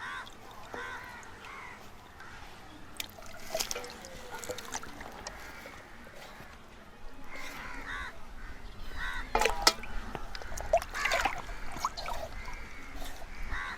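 Crows cawing now and then in the background, with a few sharp knocks from a knife working on raw chicken.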